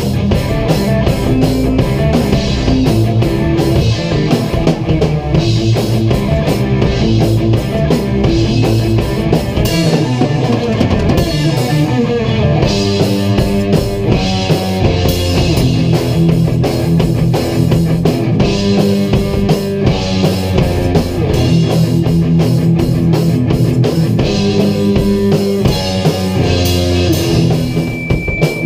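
A band jamming rock music: a drum kit with cymbals played hard under amplified electric guitars, continuous and loud.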